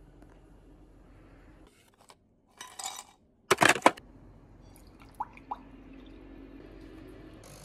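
Ice cubes clattering into a glass in a quick loud burst, then milk poured from a carton over the ice, with two light clinks of ice against the glass.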